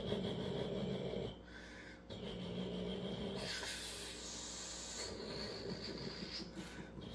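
A man imitating a car engine with his mouth, a breathy, hissing engine sound made with lips and throat. It breaks off briefly about a second and a half in, then resumes with a strong hiss over the second half.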